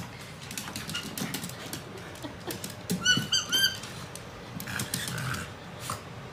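A rubber squeaky toy ball squeaks three times in quick succession as a corgi bites it. Light clicks and taps on a hardwood floor come before and after.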